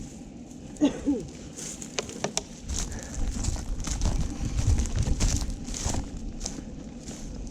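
Irregular crunching and crackling steps through debris or dry brush, with low rumble from wind or handling on the microphone. A brief short tone sounds about a second in.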